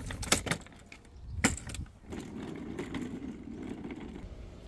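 A few sharp plastic clacks from a folding shopping trolley, then the trolley's small wheels rolling over concrete pavement with a steady rough rumble.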